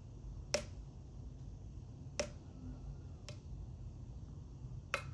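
Four sharp metallic clicks, irregularly spaced, from a pick and tension tool working the wafers of an Illinois Duo wafer padlock, over a faint low hum.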